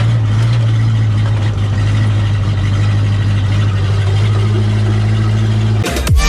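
Case bulldozer's diesel engine idling with a steady low hum. Electronic music with falling bass sweeps cuts in near the end.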